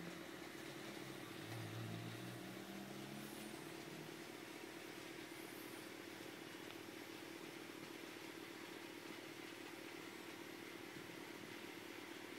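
OO gauge model diesel locomotive running round its track, a faint steady motor hum. A few short low tones sound over it in the first three seconds or so.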